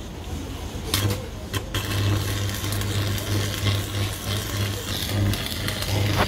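Stick (arc) welding on a truck tie rod end: the electrode strikes the arc about a second in, then the arc crackles and sizzles steadily with a low hum underneath.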